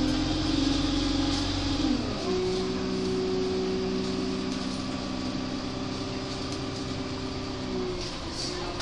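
Interior sound of an Alexander Dennis Enviro200 single-deck bus under way: its Cummins diesel engine and drivetrain running with a steady whine. The whine falls in pitch about two seconds in, then holds at a new pitch until near the end.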